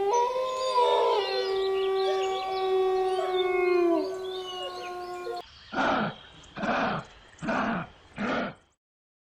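Howling in long held, overlapping tones, several voices together, cutting off abruptly about five seconds in; then four short harsh calls about a second apart.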